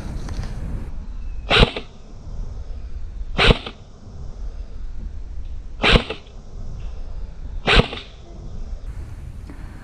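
Airsoft gun firing four single shots, each a short sharp pop about two seconds apart, over wind noise on the microphone.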